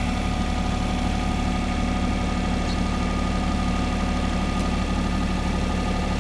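Cat 303 mini excavator's diesel engine running at a steady, even speed.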